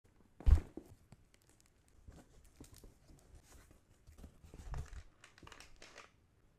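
Handling noise as plastic packaging crinkles and rustles, with scattered light clicks and a heavier thump about half a second in.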